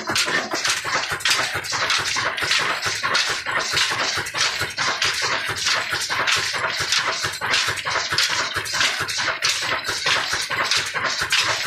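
Old Ruston Hornsby single-cylinder diesel engine running under load, driving a chakki flour mill by flat belt: a steady, dense mechanical clatter from the engine, the spinning flywheel and belt, and the mill.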